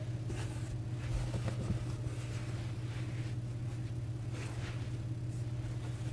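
A steady low hum, with faint soft sounds of dough pieces being lifted by hand and set down on a floured pastry mat.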